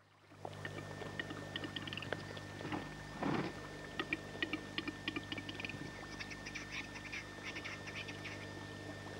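Displaying male western capercaillie at a lek: a scatter of dry clicks with one louder burst about three seconds in, over a steady low hum.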